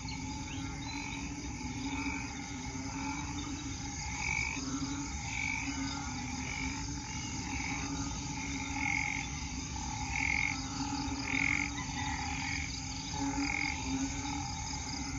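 Chorus of frogs calling after heavy rain, among them banded bullfrogs (Asian painted frogs): a breeding chorus. A steady low chorus runs throughout, with short higher calls repeating about once a second.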